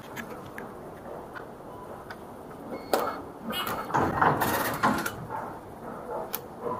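Metro ticket turnstile working: a series of clicks as the paper ticket is fed through the validator, then a short beep about three seconds in. About a second later the gate's paddles slide open, the loudest sound.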